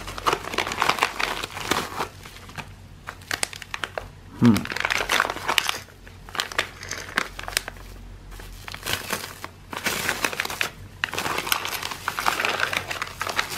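Plastic packaging crinkling as a padded mailer and a sheet of flattened bubble wrap are handled and unwrapped, in irregular bursts with short pauses. A brief louder low sound about four and a half seconds in.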